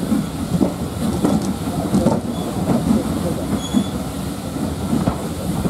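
Steam-hauled passenger train running, heard from an open carriage window: a steady rumble of the carriage wheels and the locomotive working, with a regular knock about every two-thirds of a second.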